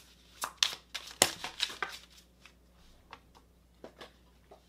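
A deck of oracle cards being shuffled and handled by hand. A quick run of crisp card flicks and rustles fills the first two seconds, loudest about a second in, then a few faint taps and rustles follow as cards are drawn.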